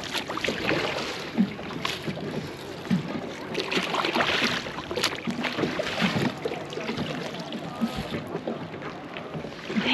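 A small inflatable dinghy being rowed: water splashing and lapping around the oars and hull in irregular strokes.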